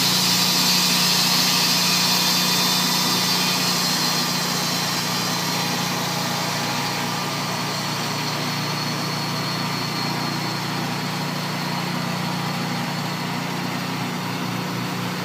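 Tru-Cut HS-70 bandsaw mill running steadily, its band blade finishing a cut through a large log: a high hiss of sawing over a steady engine hum, the hiss fading after about four seconds while the engine keeps running.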